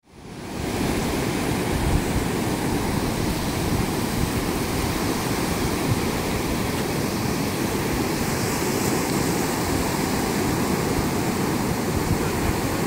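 Ocean surf breaking and washing up a sandy beach: a steady, unbroken rush that fades in over the first second.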